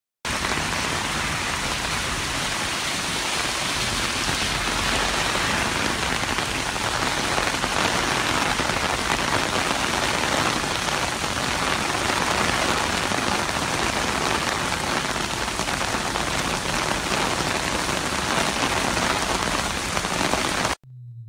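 Heavy rain pouring down onto pavement, a dense steady hiss with no let-up; it cuts off abruptly near the end.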